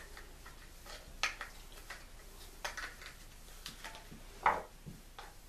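Hard plastic clicks and knocks of 3/4-inch PVC pipe and threaded adapters being handled and pushed together, a few sharp taps scattered over the seconds, the loudest about four and a half seconds in.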